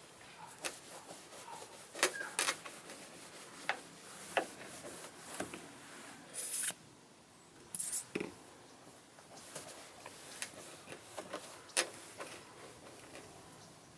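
Scattered scraping, rubbing and clicking from hand work on plastic car trim, with two short, loud hissing bursts a little past halfway.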